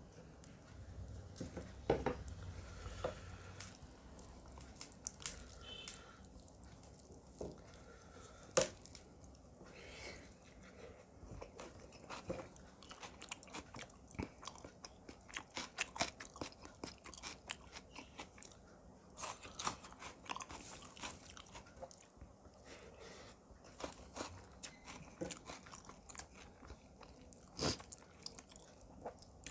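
Close-up eating sounds from a meal of chicken korma with rice and onions: steady chewing with crunchy bites and many small, irregular wet mouth clicks.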